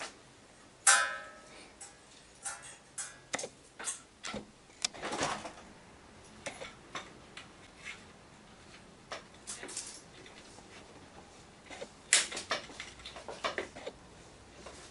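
Irregular clicks, knocks and rustling as a Roman blind is handled and fitted at the top of a plastic window frame: hard plastic parts clacking against the frame and the folded fabric rustling. The loudest clack comes about a second in, with another run of clicks near the end.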